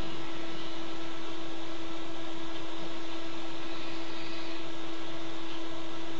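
Steady hiss with a constant hum under it, unchanging throughout, with no other sounds.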